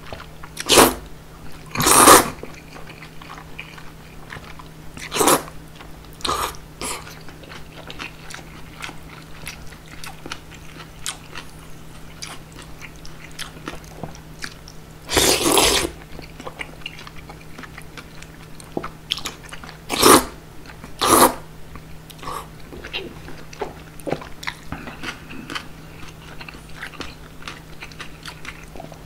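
Close-miked slurping of wheat noodles from cold soy-milk broth (kongguksu): a string of loud slurps, one longer about halfway, with soft wet chewing in between.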